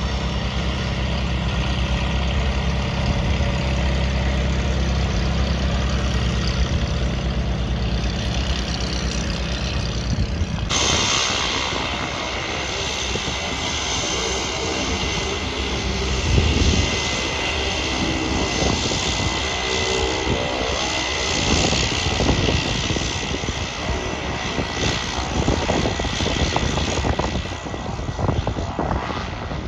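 Small propeller airplane's piston engine running: a steady low drone for about ten seconds, then an abrupt switch to a broader, noisier engine sound that eases off near the end.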